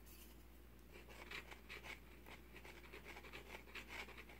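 Faint, irregular scratching as the nozzle of a wood glue bottle is drawn along the cut end of a wooden board, spreading a thin layer of glue; it starts about a second in.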